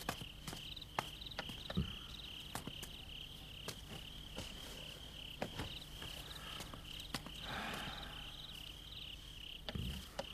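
Crickets chirping steadily, a few chirps a second, as a night background, with scattered soft knocks and a brief rustle from people moving and sitting at a table.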